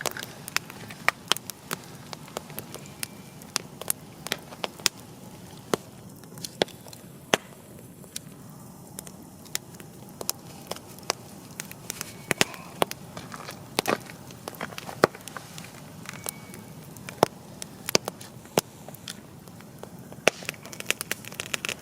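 Wood campfire crackling: sharp, irregular pops and snaps from the burning firewood over a steady low hiss, with a quick run of pops at the end.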